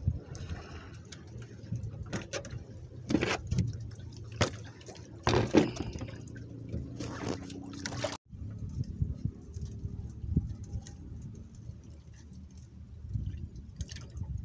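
Water sloshing and lapping against a small boat's hull, with scattered knocks and splashes as a hand line and hook are handled.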